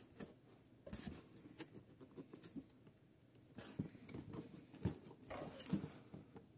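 Fingers scratching, rubbing and tapping on a cardboard carton as it is handled and its lid worked at: faint scattered scrapes and soft knocks.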